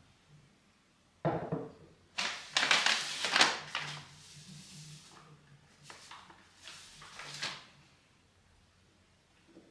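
Kitchen handling sounds while a yeast dough is mixed in a bowl: a sudden knock about a second in, then two spells of scraping and rustling.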